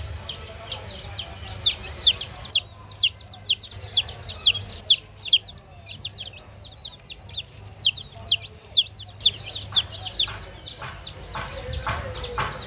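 A flock of baby chicks peeping nonstop: many high, downward-sliding peeps, several a second and overlapping. Near the end, a run of sharp clicks and rustles joins in.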